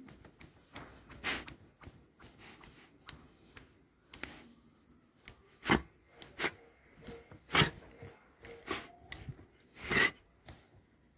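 A Doberman snapping its jaws, making sharp clacks at uneven intervals, with about four louder ones.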